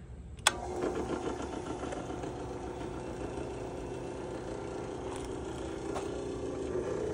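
Homemade power hammer, driven by an old Wen drill-press motor through a pulley and leaf spring, switched on with a sharp click about half a second in. The motor then runs steadily with a fast, even mechanical clatter.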